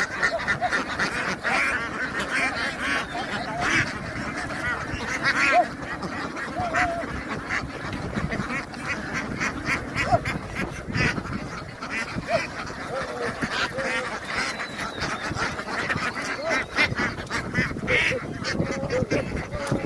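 Ducks quacking without a break, many short calls overlapping into a dense chatter, with quick clicks mixed in.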